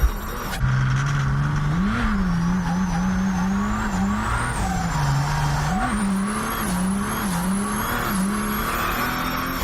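Mercedes OM606 inline-six turbodiesel, built up to 43 psi of boost, revving up and down repeatedly. A high turbo whistle rises and falls with the revs.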